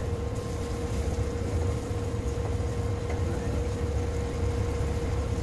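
Steady low drone of the schooner's engine, with a steady hum over it.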